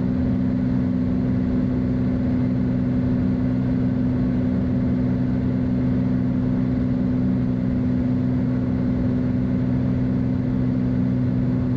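Beechcraft Bonanza's piston engine and propeller running at a steady power setting, heard from inside the cockpit as an even, unchanging drone.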